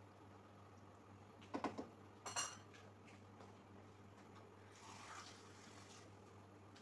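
Kitchen utensils knocking against cookware: a few light knocks about a second and a half in, then a sharper clatter a second later, over a faint steady hum.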